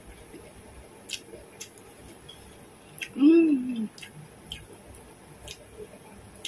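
Eating sounds: a person chewing with scattered short wet mouth clicks and smacks, and a short hummed "mmm" about three seconds in whose pitch rises and then falls.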